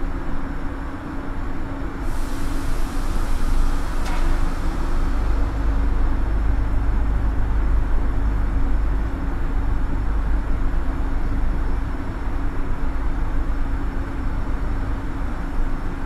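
Steelworks converter-hall noise heard from high under the roof: a heavy low rumble with a steady hum. About two seconds in, a hiss joins in and fades out a few seconds later, and there is a single clang midway through the hiss.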